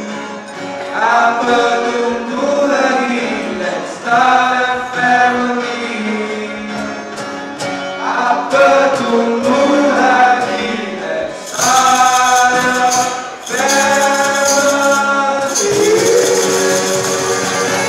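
A live song: a man sings lead over acoustic guitar, with backing singers harmonising. A tambourine comes in about two-thirds of the way through, shaken in a steady rhythm.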